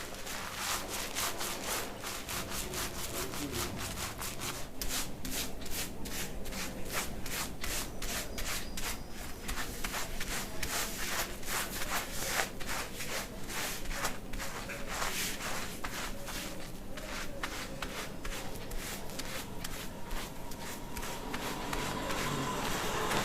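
A barber's fingers rapidly scratching and rubbing a shampooed scalp during a head massage: a quick, continuous run of scratchy strokes, several a second.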